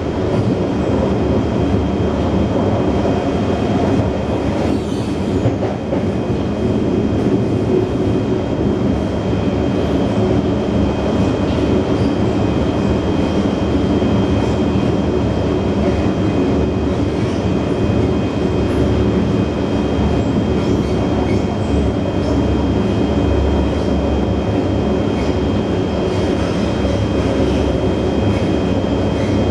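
Singapore MRT train running along the track, heard from inside the passenger carriage: a steady rumble with a constant high-pitched whine.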